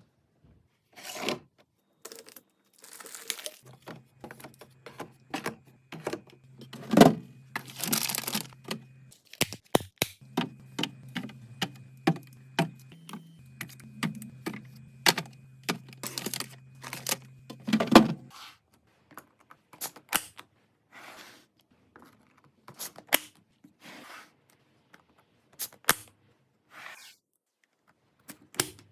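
Plastic food packaging being torn open and crinkled, with many sharp clicks and taps of containers and lids being handled and set down while restocking a fridge. A faint steady low hum runs under the first half.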